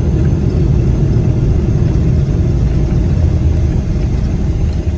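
Steady low rumble inside the cabin of a Boeing 777-300ER rolling along the ground after landing.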